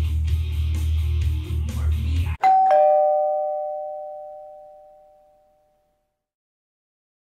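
Music cuts off abruptly about two and a half seconds in, and a two-note ding-dong doorbell chime sounds, a higher note then a lower one, both ringing on and fading away over about three seconds.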